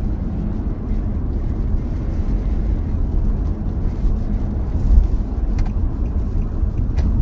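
Car interior noise while driving: a steady low rumble of engine and tyres on the road, with a couple of faint clicks near the end.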